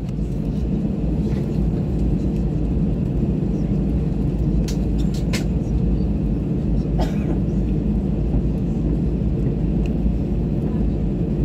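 Cabin noise of an Air Arabia Airbus A320 taxiing: a steady low hum and rumble from the jet engines at taxi power and the wheels rolling on the taxiway. A few brief clicks sound about halfway through.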